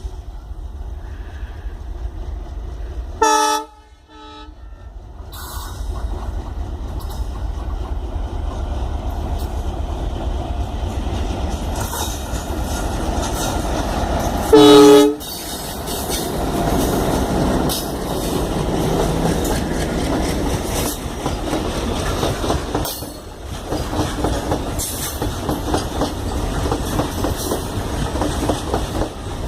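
Freight train hauled by twin ALCO diesel locomotives passing, sounding two short horn blasts about eleven seconds apart, the second the louder. Between and after them the locomotives and wagons rumble and clatter steadily over the rails, the noise building after the first blast.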